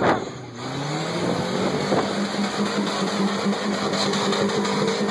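Rock buggy engine under load as the buggy climbs a rock ledge. It revs sharply at the start, then climbs in pitch about a second in and holds a steady high rev.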